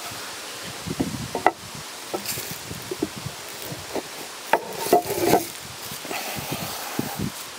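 Hand woodworking on oak: a run of irregular wooden knocks and taps, with louder clacks about one and a half seconds and five seconds in, over a steady rushing background.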